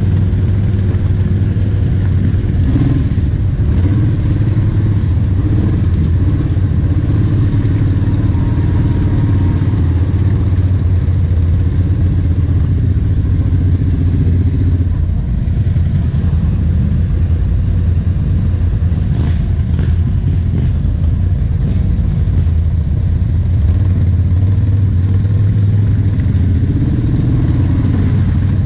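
Kawasaki KVF 750 Brute Force quad's V-twin engine running steadily at low revs under load in mud, its note easing back about fifteen seconds in.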